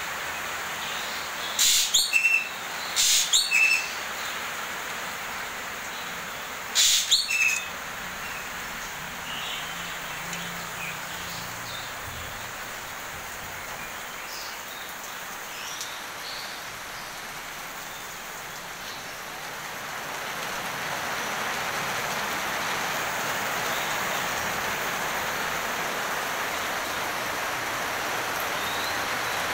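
Heavy rain hissing steadily on the aviary's foliage, rocks and pool, growing louder about two-thirds of the way through. Three short, loud, shrill bird calls ring out over it in the first eight seconds.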